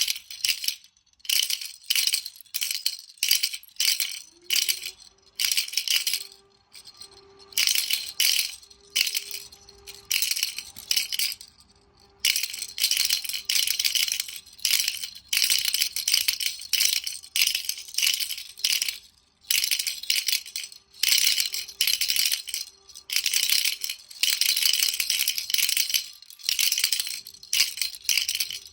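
Baby rattle shaken in quick bursts, a rapid rustling clatter of small beads with short pauses between the bursts. A faint steady tone sounds underneath from about four seconds in.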